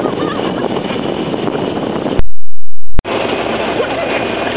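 Wind rush and engine and road noise while riding in an open-topped 4x4 on a rough road. The sound cuts out completely for most of a second about halfway through, then returns with a sharp click.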